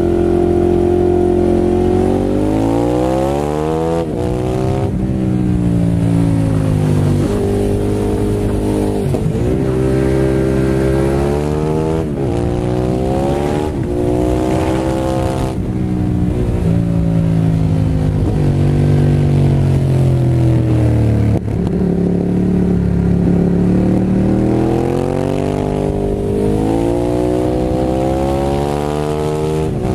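Ducati Hypermotard 821 SP's Testastretta L-twin through a full Termignoni exhaust with dB eater, heard onboard while riding. The engine note climbs under throttle and drops at each gear change or roll-off, over and over along a twisty climb.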